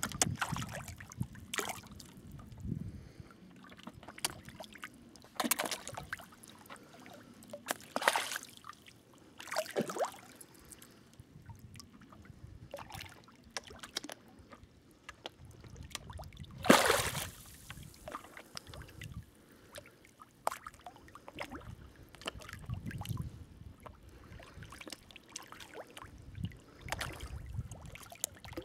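Hardhead sea catfish splashing at the water surface as they feed on floating bread, in irregular splashes a few seconds apart; the loudest comes a little past halfway.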